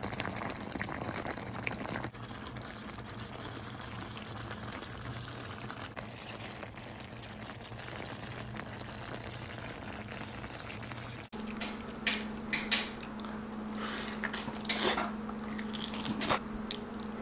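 Beef kaldereta stew simmering with a soft, even bubbling hiss. About eleven seconds in it cuts to close-miked eating: wet chewing, smacking and sharp mouth clicks over a steady low hum.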